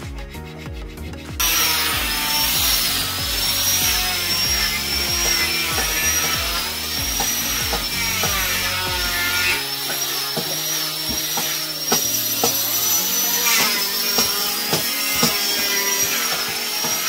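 Handheld electric power tool running and cutting into a teak beam, its high whine wavering up and down as it bites; it starts about a second and a half in, over background music.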